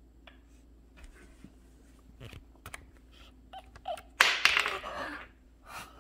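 A cat's paw swatting at a cat candy in its plastic holder stuck to a cabinet side: a few light taps, then about four seconds in a sudden loud knock with a short clatter as it is knocked off.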